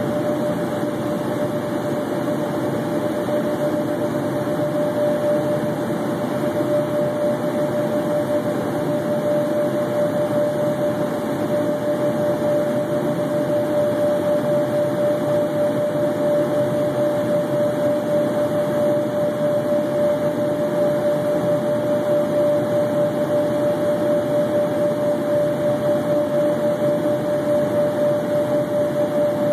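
Steady in-flight cabin noise of an Embraer Phenom 100 light jet: a rush of airflow and its twin turbofan engines, with one steady tone above the rush. It grows a little louder about halfway through.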